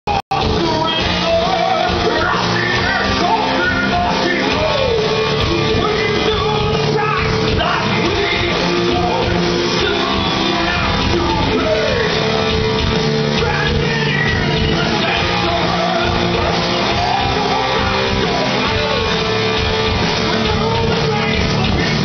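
Heavy metal band playing live through a club PA: distorted electric guitars, bass and drums under a singer's voice, with the echo of a large hall.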